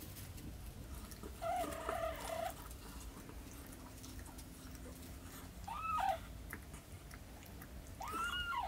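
Newborn kittens mewing while they nurse: three thin, high-pitched mews, the first about a second long and steadier, the other two short calls that rise and fall.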